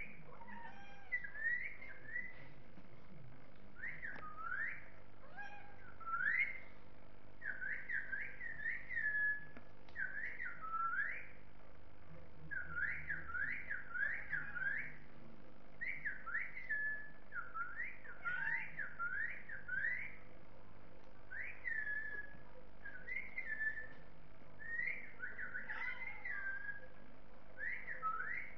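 Whistling in short repeated phrases of quick, high notes that slide up and down, with brief pauses between the phrases.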